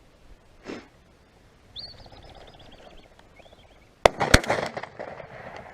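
A partridge flushes with rapid wingbeats and a whistling call, then a shotgun fires twice in quick succession, the shots about a third of a second apart, each with a short echo.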